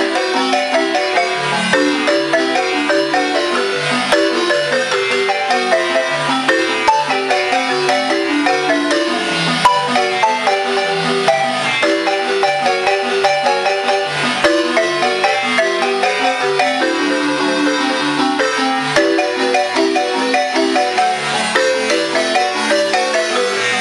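Marimba chiapaneca, wooden bars struck with mallets, playing a lively tune in rapid rolled notes over a bass line.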